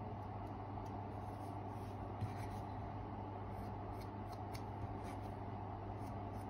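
Small carving knife shaving a wooden lure body, light scratchy cuts over a steady background hum, with a small tap about two seconds in.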